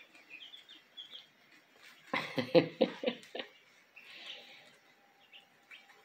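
Young chicks in a brooder peeping, with short high cheeps in the first second and again around four seconds in. A brief low murmur of a person's voice comes in the middle.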